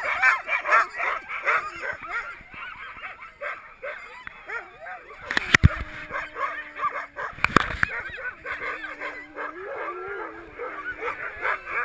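A pack of sled dogs yipping and howling together, many high voices overlapping. There are two sharp knocks around the middle.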